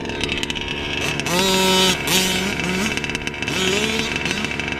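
Two-stroke petrol engine of a Losi 5ive-T 1/5-scale RC truck revved in short blips, each rising quickly in pitch and then holding. The longest rev comes about a second in, followed by several shorter ones.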